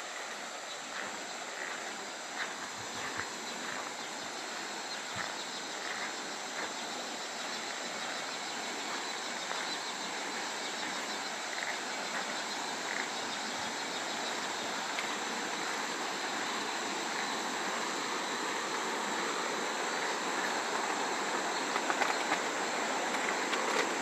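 Rainforest ambience by a stream: a steady drone of insects over running water, slowly growing louder.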